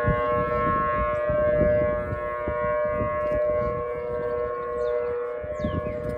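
Several outdoor warning sirens sounding together in a steady alert tone, two notes held as a chord, during a routine monthly siren test.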